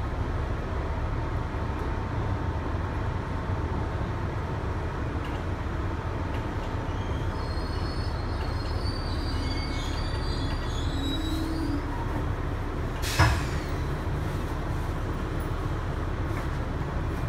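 Steady rumble of a moving 1983–1987 Bombardier R62A subway car, heard from inside. High-pitched wheel squeal comes in about seven seconds in and lasts some four seconds, and a single sharp clunk follows about a second later.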